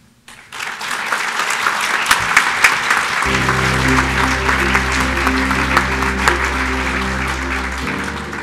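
Audience applauding. Sustained music joins about three seconds in and stops a little before the end, while the clapping slowly fades.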